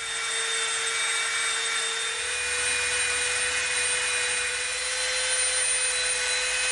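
Dremel rotary tool running at speed with a steady high whine, its bit grinding a bevel into a small EVA foam disc.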